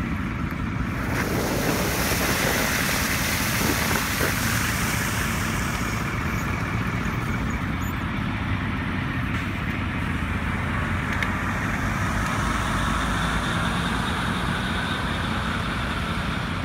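Fire hydrant opened with a hydrant wrench, water rushing out of an open outlet onto the grass from about a second in and running on steadily: the hydrant being purged before a hose is coupled to it. A steady low rumble underneath.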